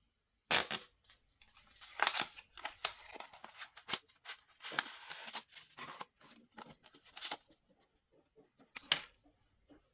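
Phone box and packaging being handled and unwrapped close to the microphone: an irregular run of short, sharp rustles and clicks, loudest about half a second in and again near the end.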